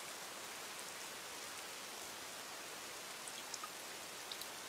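Faint, steady rain: a soft even hiss with a few light drop ticks near the end.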